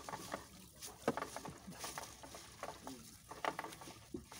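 Wet fishing net being hauled by hand over the side of a wooden outrigger boat. Water splashes and drips off the mesh, with irregular clicks and knocks as the net and its floats hit the hull.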